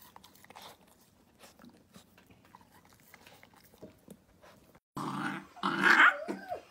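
Corgi puppy eating from a bowl: faint chewing and licking clicks. About five seconds in it turns louder as the puppy nips and mouths at a hand, ending in a short cry whose pitch bends up and down.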